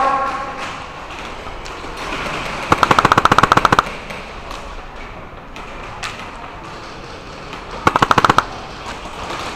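Airsoft gun firing two full-auto bursts: a rapid string of about a second a few seconds in, then a shorter half-second burst near the end.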